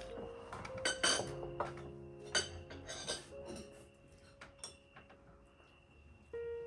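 Dishes and cutlery clinking: a handful of sharp clinks in the first three seconds, then fainter ones, over soft background music.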